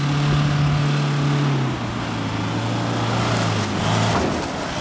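Four-wheel-drive ute's engine running steadily as it drives through mud, its note dropping a step about two seconds in and wavering briefly near the end.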